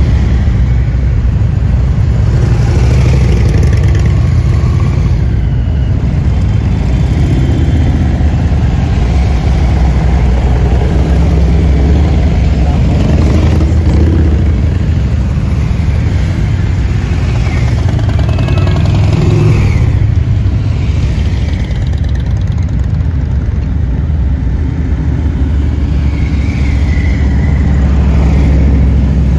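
A loud, steady procession of large touring motorcycles passing close by at low speed, one engine after another.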